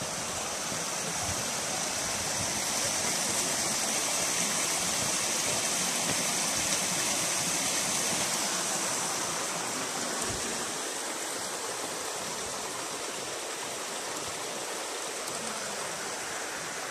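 Water rushing over a small reservoir dam's concrete spillway, a steady rush that swells over the first few seconds and eases off after about ten seconds.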